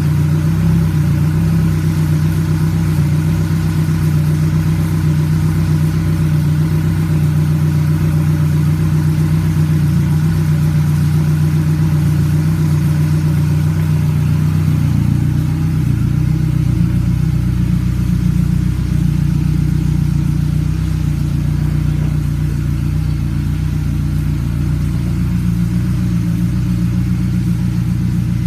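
Selva 115 XSR four-stroke outboard running at a steady idle with its cowling off. The note holds pitch, and the lower part of the sound grows fuller about halfway through.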